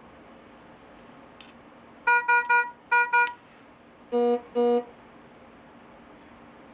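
Philips IntelliVue MP70 patient monitor sounding an alarm: five short beeps in a quick group of three and then two, followed by two longer, lower-pitched beeps.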